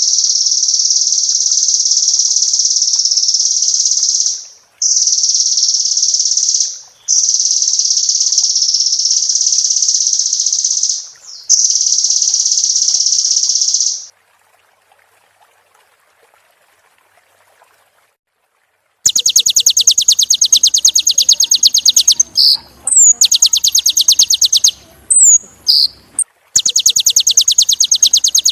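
Kolibri ninja sunbird singing: long, continuous high trills in several stretches with brief breaks. After a pause of about five seconds it switches to rapid, stuttering trills broken by short slurred whistles.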